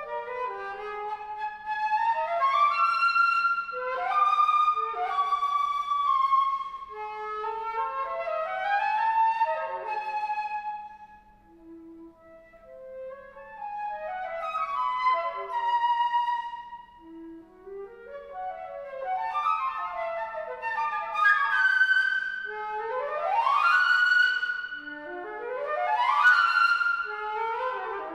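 Concert flute playing solo, unaccompanied: quick rising runs and arpeggios that sweep up into the high register, with held notes between them and a brief soft low note near the middle.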